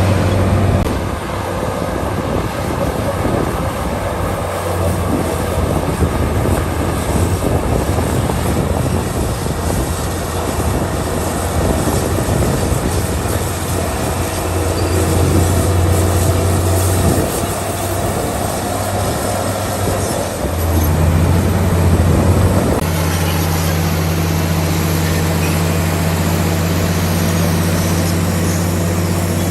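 Crawler bulldozer working: its diesel engine runs under load with a clanking, squealing clatter from the steel tracks, and the engine note shifts several times. From about 23 seconds in, the clatter falls away and the engine settles to a steady drone.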